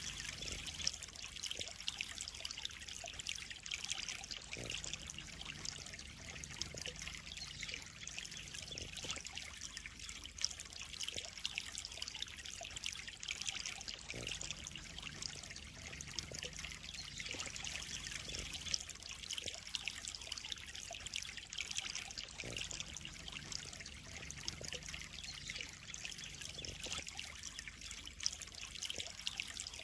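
Water trickling and spattering steadily into a pond, with a few louder drops scattered through it.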